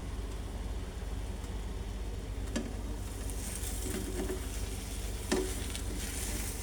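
Omelette frying in butter in a pan, a steady sizzle over the low hum of a fan, with two light clicks about two and a half and five seconds in.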